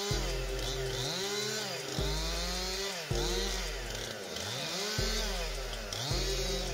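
Gas chainsaw cutting into a tree trunk, the engine's pitch rising and falling repeatedly as the chain bites into the wood and frees again.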